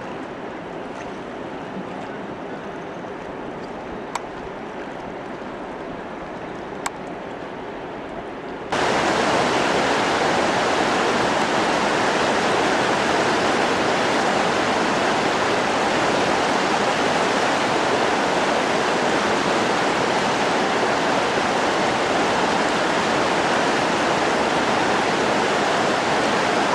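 Rushing whitewater of a mountain river, a steady rush that jumps suddenly louder about nine seconds in. Two faint clicks come before the jump.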